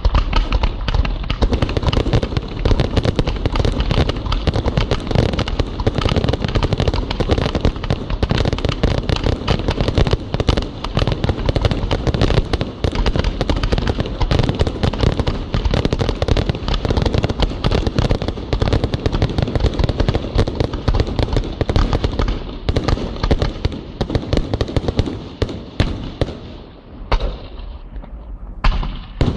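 Maltese festa fireworks going off in a dense, continuous barrage of bangs and crackling, thinning to a few separate bangs near the end.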